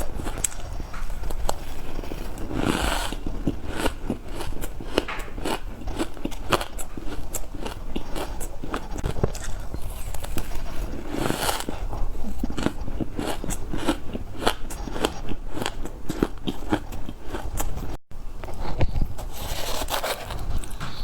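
Close-miked bites into frozen green matcha ice: repeated crisp, powdery crunching and crackling as the ice is bitten and chewed, with a brief break from an edit about three-quarters of the way through.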